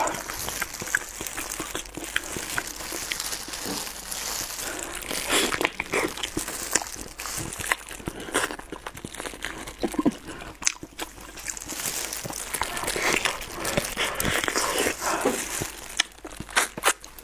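Close-miked eating of braised pork trotters: chewing and irregular wet clicks from the mouth, with crinkling of disposable plastic gloves as the meat is pulled apart.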